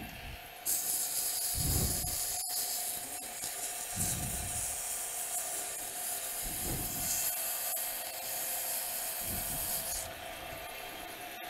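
Foam-backed sanding pad pressed against a wooden pen blank spinning on a lathe, making a steady hissing rub that starts about a second in and stops near the end. The lathe's motor hums steadily underneath.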